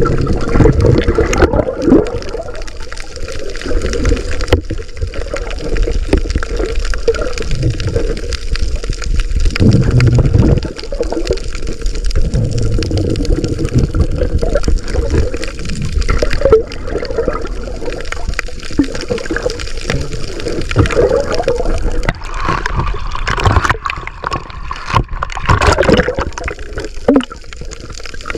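Muffled rushing and gurgling of water heard through a camera held underwater, with a few sharp knocks.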